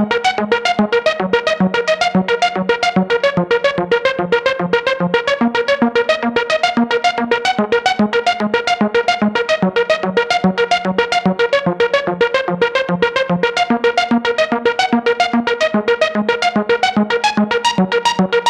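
Korg ARP 2600 FS analog synthesizer playing a fast, even run of short, plucky notes, about five a second, over a recurring low bass note.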